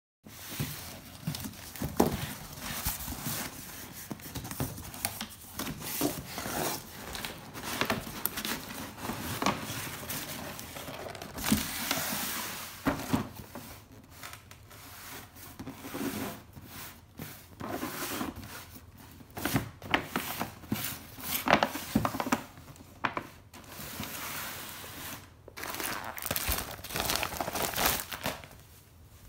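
Packaging being handled and unwrapped: irregular crinkling and rustling with tearing and sharp clicks and rattles, in a small room.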